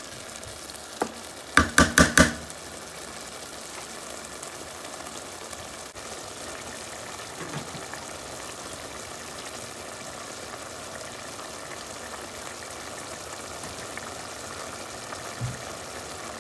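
Beef chunks frying in oil and onion paste in an aluminium pot, a steady sizzle. About two seconds in, four quick loud knocks.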